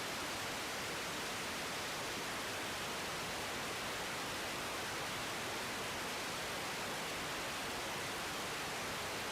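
Steady hiss of an air traffic control radio channel between transmissions: an even, unchanging static.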